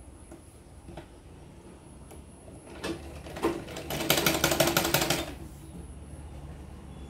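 Domestic sewing machine stitching a short run through fabric: the needle clatters in a fast, even rhythm for about two seconds in the middle, picking up speed as it starts, with a few single clicks before it.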